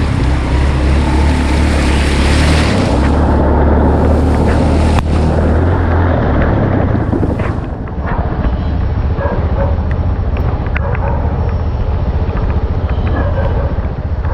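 An engine running steadily under a loud rushing noise; the rushing fades about eight seconds in and the engine runs on.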